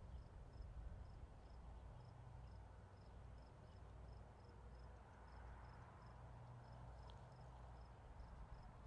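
Faint cricket chirping: short, evenly spaced high chirps about two or three times a second, over a low steady rumble.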